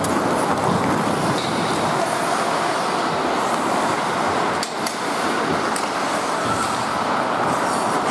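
Ice hockey play in a rink: a steady scrape and hiss of skates on the ice with the clack of sticks and puck, one sharper knock about halfway through.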